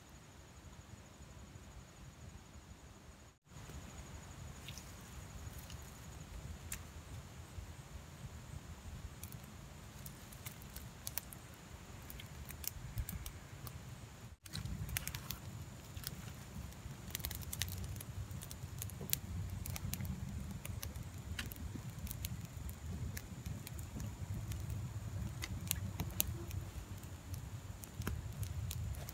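Small campfire of dry twigs and wood shavings catching and burning, with sharp crackles and pops that grow more frequent as the flames take hold, over a low rumble.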